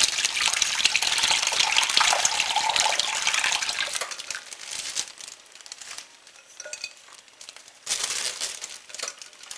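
Thick soup-and-broth mixture pouring from a glass measuring cup into a plastic oven cooking bag over a roast and vegetables: a steady splashing gush for about four seconds, then quieter trickling, and another short splash near the end as the last of it is tipped out.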